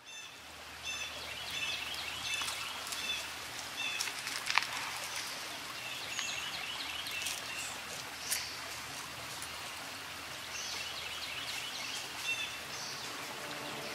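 Birds chirping in short repeated phrases over a steady background hiss, with one sharp, sudden sound about four and a half seconds in.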